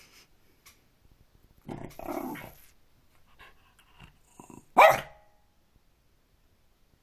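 A pet growling with a hiss for about a second, then, about five seconds in, one short, sharp, loud cry.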